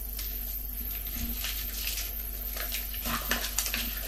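Candy wrapper crinkling and rustling as it is unwrapped by hand, a string of short crackles that grows busier in the second half.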